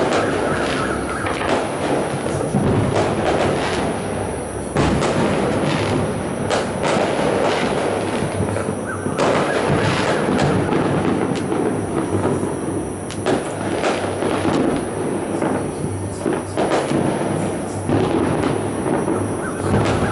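Fireworks going off in a dense barrage, many bangs and crackles overlapping into a continuous rumble, with music playing underneath.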